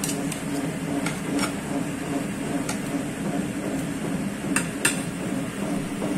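Gelato batch freezer running with a steady hum as its dasher pushes chocolate gelato out through the chute, while a metal spatula scrapes and knocks against the steel chute and tub, with two sharp clacks about four and a half seconds in.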